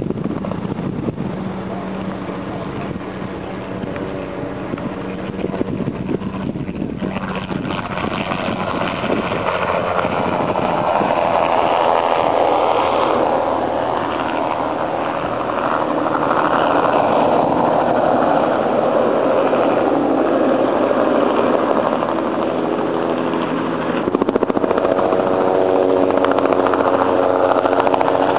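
Bell 206 JetRanger single-turbine helicopter flying spray passes, its rotor and turbine sound swelling about ten seconds in and again near the end as it comes closer.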